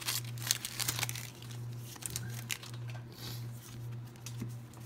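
Pokémon trading cards being flipped through in the hands, card stock rubbing and flicking with quick papery clicks and rustles, thickest in the first second. A steady low hum runs underneath.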